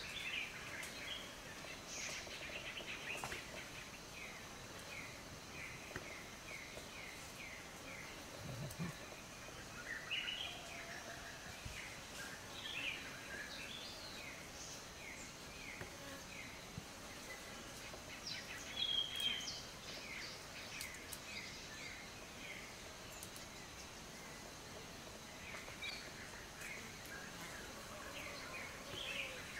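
Forest birds calling: runs of short down-slurred chirps, several a second, with a louder whistled note about two-thirds of the way through. Under them runs a steady high insect drone.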